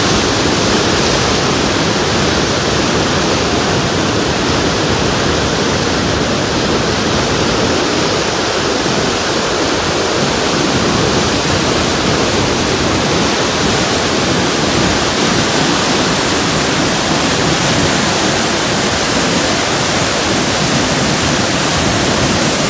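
Niagara Falls: the loud, steady rush of a huge volume of falling water, unbroken throughout.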